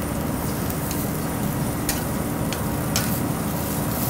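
Zucchini and red bell pepper slices sizzling on a restaurant char-grill, with a few sharp clicks of metal tongs against the grate as they are turned, over a steady low hum.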